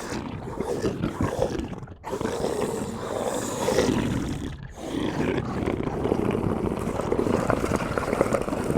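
Monster or alien creature sound effect: deep, rough growling roars in three long phrases, with short breaks about two seconds in and again halfway through.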